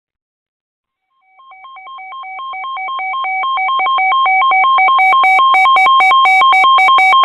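Weather radio's alert alarm: a two-tone beep alternating rapidly between a lower and a higher pitch, starting about a second in and growing louder over the next few seconds until it is loud and steady. It signals an incoming severe weather warning.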